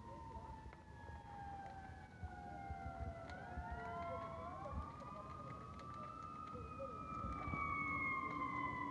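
Emergency-vehicle sirens wailing, two of them overlapping: one slowly winds down while a second rises about three seconds in, peaks, then slowly falls, getting louder toward the end.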